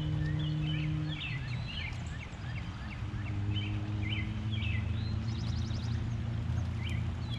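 Small birds chirping over and over in short calls and slurs, over a steady low hum.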